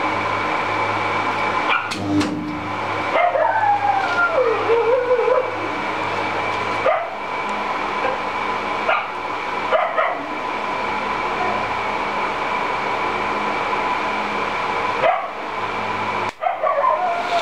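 Portable table spot welder joining thin brass sheets between its copper electrodes: a low transformer hum while current flows, and short sharp snaps as welds are struck, over a steady high-pitched whine. A loud, wavering high cry slides up and down about three seconds in and again near the end.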